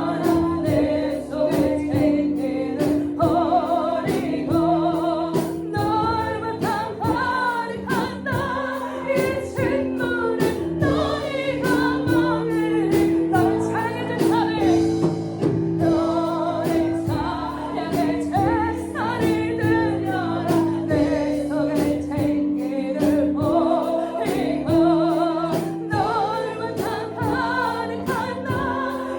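Christian worship song: a group of voices singing together over a band with a steady drum beat.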